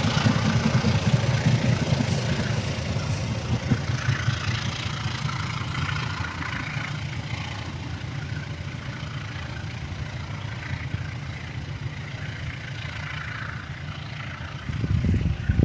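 Train engine rumble, fading gradually as the train pulls away, with a brief louder rumble swelling near the end.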